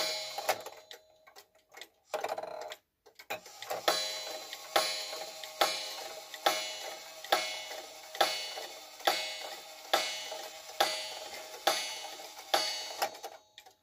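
Rusty coiled gong of a Victoria Arad cuckoo clock striking twelve, about one stroke a second, each stroke ringing on briefly. There is no cuckoo call because the plastic bellows are broken, so the clock strikes on the gong alone. A short rustling noise comes about two seconds in, before the strikes begin.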